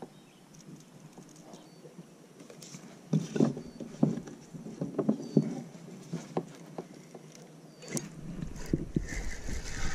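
Short knocks and taps of fishing rods and tackle against a plastic kayak as they are handled, in clusters for a few seconds in the middle. A low steady rumble comes in near the end.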